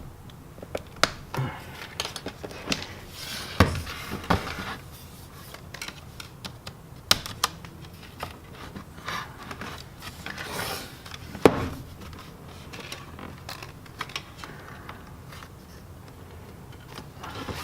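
Plastic pry tool scraping and levering along the seam of a Dell Inspiron laptop's plastic bottom cover, with irregular sharp clicks and snaps as the cover's clips strain and pop, the loudest snap near the middle; something is still holding the cover in.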